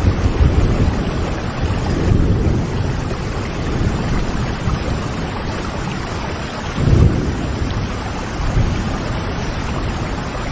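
Steady heavy rain with low rolling thunder rumbling underneath, swelling about seven seconds in.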